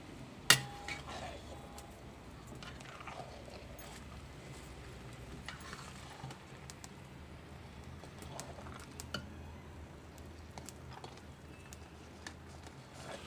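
Metal spatula scraping and knocking against a black iron kadhai as thick, steaming carrot halwa is stirred. One sharp metallic clank about half a second in rings briefly; scattered lighter knocks follow.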